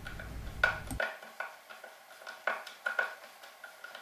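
Hand screwdriver driving a brass screw through a wooden door into a pre-drilled wooden door pull, with irregular clicks as the tool turns.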